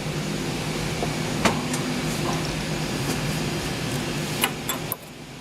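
A steady low machine hum, with a few sharp clicks of small metal parts being handled and fitted; the hum drops away near the end.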